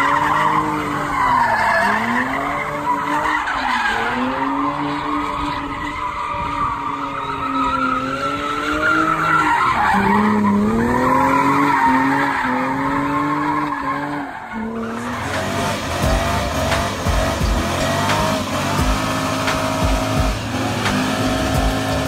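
Lexus GS300's inline-six revving up and down over and over while it spins donuts, its rear tyres screeching. About fifteen seconds in this cuts off abruptly to music with a steady beat.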